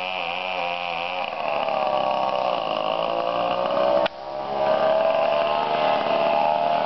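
Chainsaw running as it cuts into a coconut palm trunk, its engine note wavering up and down under load, with a sudden short dip about four seconds in.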